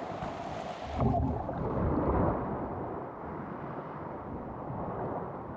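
Small sea waves washing over a pebble shore. About a second in comes a louder, deeper rush lasting a second or so, and after it the sound is duller.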